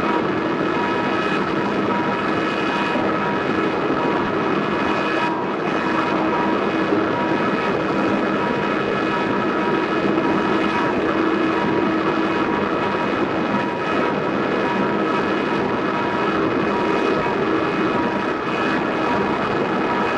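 Dense industrial noise music: a steady wall of noise with held drone tones layered through it and a higher tone pulsing in short, even beats. There are no drums or vocals.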